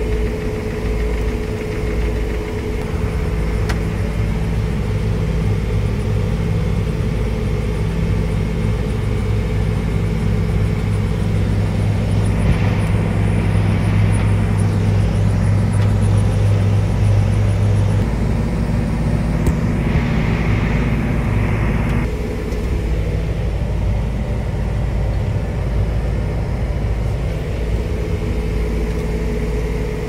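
Tractor's diesel engine running steadily under load, heard from inside the cab as it drives across a cotton field; its tone shifts a little more than halfway through.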